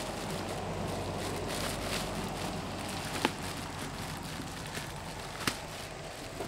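Plastic wrapping crinkling and rustling as it is pulled off a new saddlebag, with a couple of sharp ticks, one about three seconds in and another a couple of seconds later.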